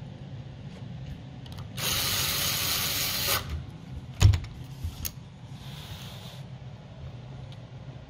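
A hiss lasting about a second and a half, then a single sharp knock about four seconds in, from hands working on the parts of an opened laptop.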